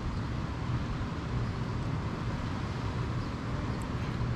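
Steady outdoor background rumble and hiss, heaviest in the low range, with no distinct events.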